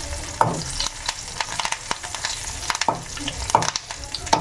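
Curry leaves frying in hot oil in a kadai, a steady sizzle, with a spoon knocking and scraping against the pan several times as they are stirred.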